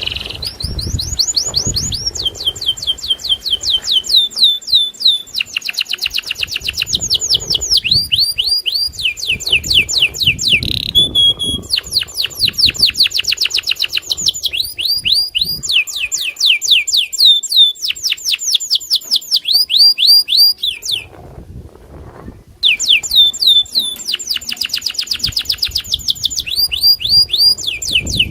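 Domestic canary singing long, rapid trills: phrase after phrase of quickly repeated high falling notes, switching from one trill to the next almost without pause, with one brief break about three quarters of the way in.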